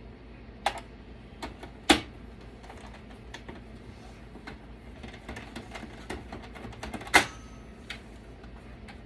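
Irregular clicks and taps of a desktop computer's metal and plastic parts being handled and unscrewed during a teardown, with two sharper knocks, one about two seconds in and one about seven seconds in.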